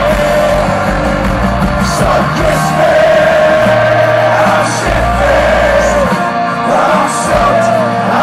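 Live Irish punk band music, loud: bagpipes playing the melody over drums and full band, with singing.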